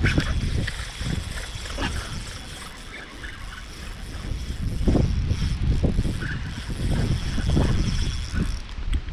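Gusty wind buffeting the microphone, a rumbling roar that swells and falls, strongest about five to eight seconds in.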